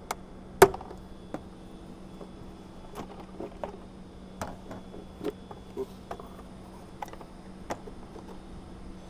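Scattered sharp clicks and hollow plastic knocks as the stock plastic airbox of a Toyota 4Runner is unclipped from its wiring harness and lifted out of the engine bay, with a faint steady hum underneath. The loudest is a sharp click a little over half a second in.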